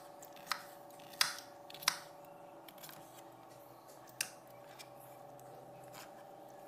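Kitchen knife cutting pineapple into small pieces on a cutting board: a few sharp taps of the blade on the board, three in the first two seconds, one about four seconds in and a lighter one near the end, over a faint steady hum.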